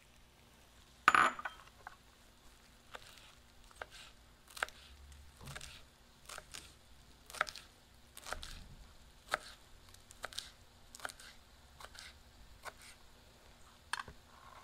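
Knife chopping cilantro on a cutting board: irregular single taps, about one or two a second, with one louder clink about a second in.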